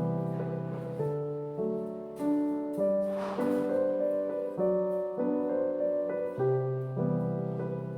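Background piano music: a gentle, slow sequence of sustained notes and chords.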